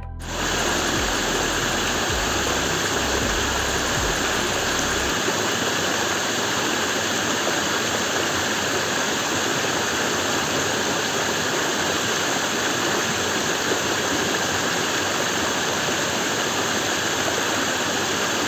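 Steady, loud rushing noise with no rhythm or pitch, like falling water. A low bass note carries on underneath for the first few seconds and then stops.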